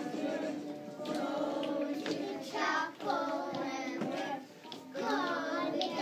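A group of young children singing a song together over music.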